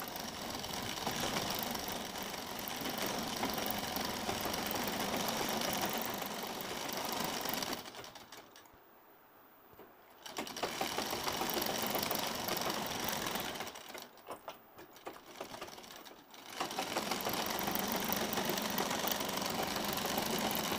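Sewing machine stitching a lining seam onto a blouse sleeve, running steadily and stopping twice for a couple of seconds, about eight and fourteen seconds in.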